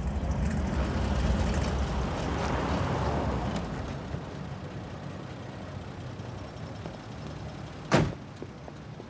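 A GAZ-21 Volga taxi pulling up and idling, its engine rumble loudest in the first few seconds and then easing off. Near the end a car door slams shut once.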